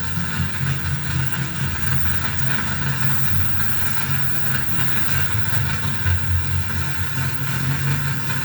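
Electronic noise drone from a mixer-feedback rig with reel-to-reel tape, reverb and bass: a dense, steady low rumble that flutters constantly, with hiss spread above it.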